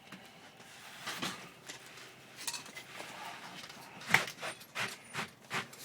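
Scattered light knocks and clinks as a replacement window unit is handled and set into its opening, the sharpest knock about four seconds in.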